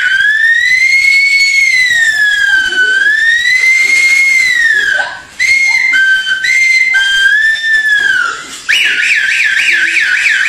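A person whistling an imitation of an ambulance siren: first a slow rising-and-falling wail, then an alternating two-note hi-lo tone about halfway through, then a fast warbling yelp near the end.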